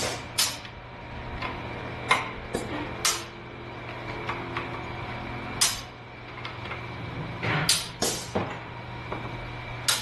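A series of short, sharp metallic clanks and clicks from hand tools and parts during work on a car's drive axle, spaced irregularly, over a steady low hum.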